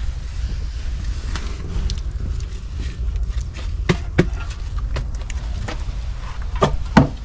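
Bricklaying: a scattering of sharp taps and knocks from a mason's trowel working bricks and mortar, two close together near the middle and two more near the end, over a steady rumble of wind on the microphone.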